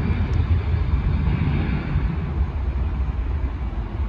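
Jet engines of a Sundair Airbus A320-family airliner at takeoff thrust on its takeoff roll, heard from a distance as a steady low rumble.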